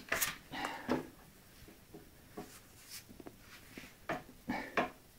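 A few short rustles and light knocks, scattered about a second apart, from a handheld camera and clothing being moved close to the microphone. They are heard in the boxy acoustics of a small bathroom.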